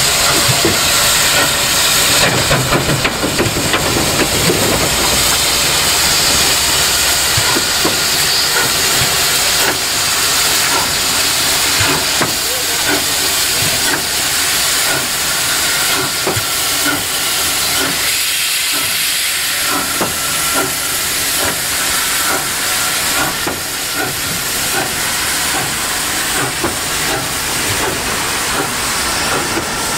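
Victorian Railways K-class steam locomotive K153 moving off slowly with its train, giving a strong steady hiss of steam that is loudest in the first few seconds. The passenger carriages then roll past, with frequent clicks and knocks over the track.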